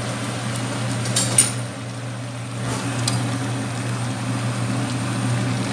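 Steady low mechanical hum of a running fan. A sharp click comes about a second and a half in and a fainter click about three seconds in.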